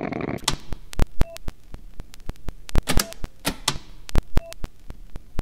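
Outro sound effect of sharp, evenly paced clicks, about four a second, with a short beep after some of them, three times.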